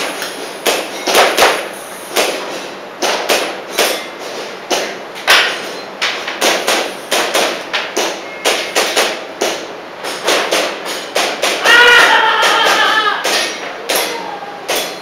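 Airsoft pistol shots fired in quick strings of sharp cracks, the shooter moving between bursts, with shorter gaps between clusters of two to four shots.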